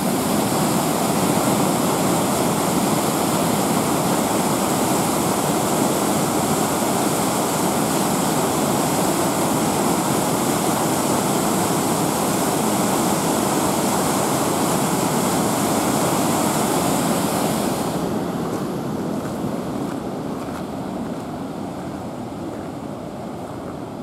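Water released from a reservoir dam rushing and churning as white water through its concrete outlet channel: a steady rush that grows fainter over the last several seconds.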